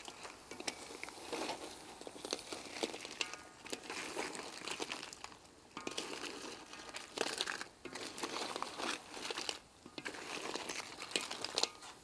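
Blue swimmer crabs being gently tossed in tamarind sauce in a frying pan with a utensil: irregular light scraping and clattering of crab shells and utensil against the pan.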